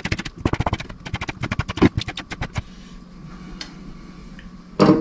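Chef's knife chopping spring onion on a wooden chopping board: a rapid run of sharp knife knocks on the wood that stops about two and a half seconds in, followed near the end by a single louder thump.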